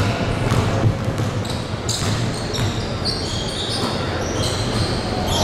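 A basketball bouncing on a hardwood court, a few knocks about a second apart, with short high squeaks of sneakers on the floor.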